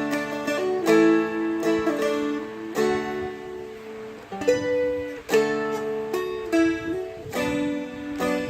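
Seagull Merlin M4, a four-string diatonic dulcimer-style guitar, played slowly by picking. A melody note is struck about once a second and left to ring, while lower strings keep sounding underneath.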